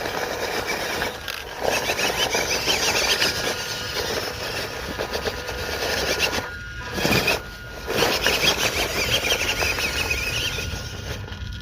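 Small electric motor and gearbox of a 1/12-scale MN99 Land Rover D90 RC crawler whining under throttle as it climbs, with two brief drops where the throttle is let off about two-thirds of the way through.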